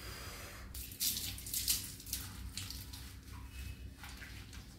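Water splashing and pouring during a dog's bath, in irregular bursts.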